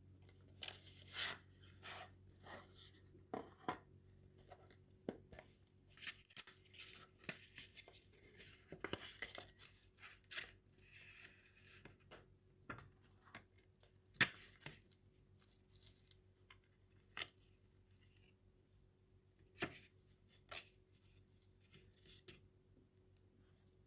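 Faint handling of a TWSBI Eco fountain pen's cardboard and paper packaging: rustling and scraping of the box, sleeve and lid, with scattered sharp taps and clicks. The rustling is busiest in the middle, then only occasional taps.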